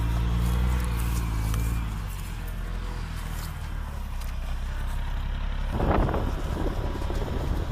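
Eight-wheeled armoured vehicle's diesel engine running with a low, steady drone, loudest in the first two seconds, with a brief louder rush about six seconds in.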